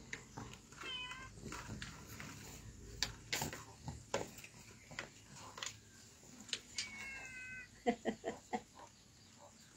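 A baby's high-pitched squeals: a short one about a second in and a longer, steadier one near seven seconds. Scattered sharp taps, with a quick run of them around eight seconds.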